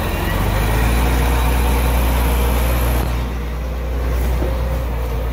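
Volvo semi-truck's diesel engine running with a steady low drone.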